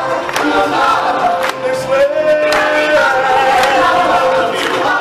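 Live stage singers with a choral chorus over band music and percussion, amplified through a show's sound system, with long held sung notes.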